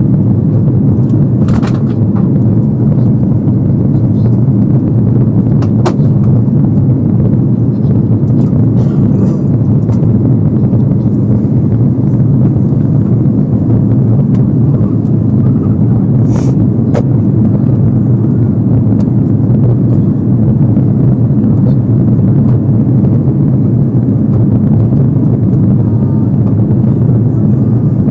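Airbus A330-300 cabin noise heard from a window seat behind the wing on approach: a steady, deep drone of engines and airflow, loud and distorted by a wrongly set microphone. A few faint clicks sound through it.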